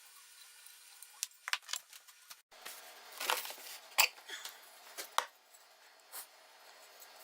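Scattered clicks and knocks of metal and wood parts of an old hand plane being handled, with a short rubbing scrape about three seconds in.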